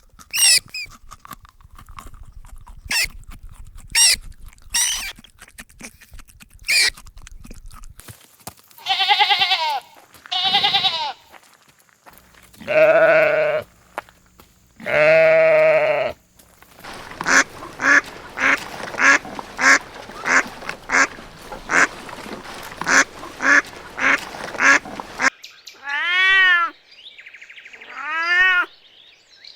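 A string of different farm animal calls, one after another: brief high calls at first, then several long bleats typical of goats or sheep, then a quick run of short repeated calls, and two rising-and-falling calls near the end.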